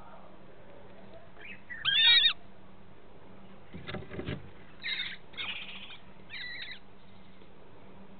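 Lesser kestrels calling while the female lays an egg. One loud call with a wavering pitch comes about two seconds in, then soft rustling, then three shorter, harsh calls.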